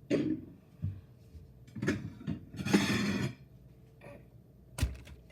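Kitchen handling sounds: a few soft knocks, a brief rustle near the middle and a sharp click near the end.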